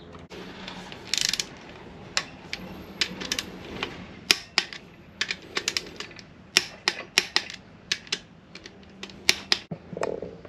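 Irregular, sharp metallic clicks of a ratchet torque wrench being worked on a connecting rod bolt as it is tightened to check the bolt's stretch.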